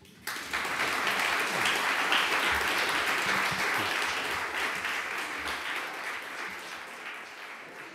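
Audience applauding: the clapping starts suddenly, is at its loudest in the first few seconds and slowly fades toward the end.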